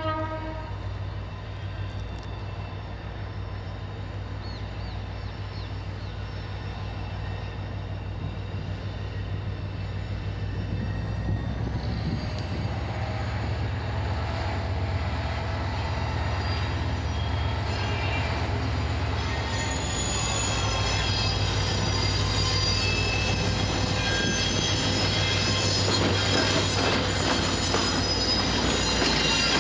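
GM/EMD GT22CW diesel locomotive running slowly with a steady low engine rumble that grows louder as it approaches and passes. In the second half its loaded tank cars roll past, with wheels squealing on the rails.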